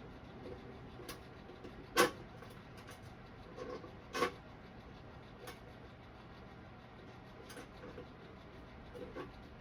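Scattered light knocks and clicks of hardware and tools being handled against the toolbox: a sharp knock about two seconds in, another around four seconds, and a few fainter clicks later.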